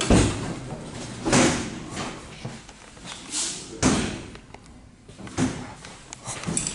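Several dull knocks and thuds inside an empty electric train carriage, irregularly spaced a second or two apart. The loudest come at the start, about a second and a half in, and just under four seconds in.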